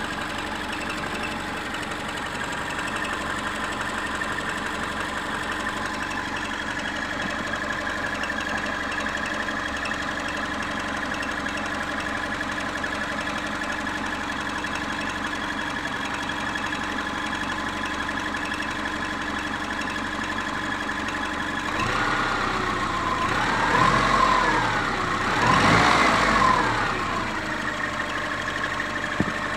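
Subaru engine idling with a steady squeal from a worn bearing, which the owner suspects is in the water pump or the alternator. Near the end the engine is revved twice, and the squeal rises and falls in pitch with it.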